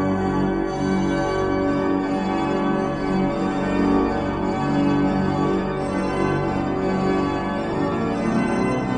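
The pipe organ of St. Elisabeth's Cathedral in Košice playing full, sustained chords that change every second or so, heard from down in the nave.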